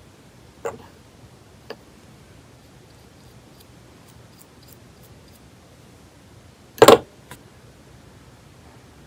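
Light clicks of a nail polish brush against the neck of a small glass bottle, twice in the first two seconds, then one sharp, loud knock near the end, over a faint steady hiss.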